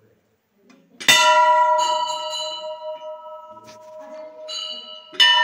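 Large hanging brass temple bell struck twice with its clapper, about four seconds apart. Each strike rings on in long, resonant tones that slowly fade.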